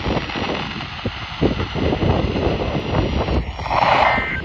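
Wind buffeting the microphone in irregular gusts, with a brief electronic beep near the end.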